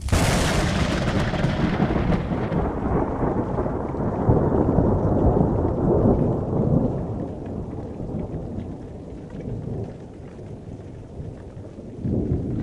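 A loud rumble with no tone in it. It starts sharply, dies away over about ten seconds and swells again briefly near the end.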